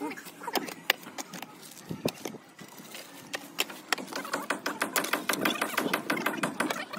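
A spade digging into dry, hard soil: a run of quick scrapes and knocks that grows denser and louder in the second half.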